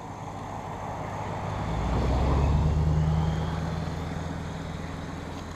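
A passing engine, swelling to its loudest about two to three seconds in and then fading, with a low steady hum.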